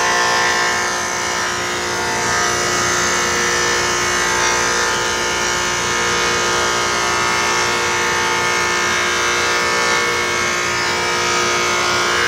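Delta thickness planer running and planing a board as it feeds through: a steady, loud machine whine made of many tones, brightening a little near the start and again near the end.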